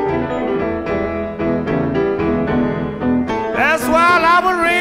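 Blues song with piano playing steady chords and notes, and a man's singing voice coming in about three and a half seconds in.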